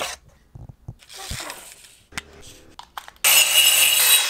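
A few light knocks and a rustle of wood being handled, then about three seconds in an angle grinder cuts into a wooden plank with a sudden loud, steady high whine.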